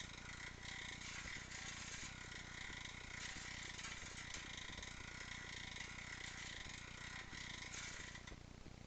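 Stels Navigator 300 bicycle drivetrain running as the pedals are turned, with a light repeated knocking from the rear hub. The knock comes only under pedalling, which points to a fault in the rear hub. The sound weakens near the end.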